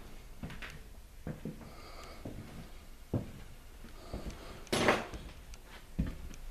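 Scattered footsteps and light knocks on a bare floor in an empty, gutted room, with a short, louder scraping rustle about five seconds in.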